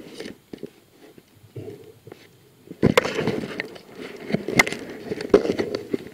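Muffled underwater noise heard through a diving camera's housing: scattered clicks and knocks over a low rumble, turning into a dense run of clicking from about three seconds in.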